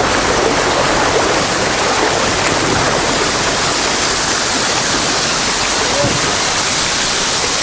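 Fast river water rushing over rapids, with a small waterfall pouring off the rock bank: a steady, loud rush of white water.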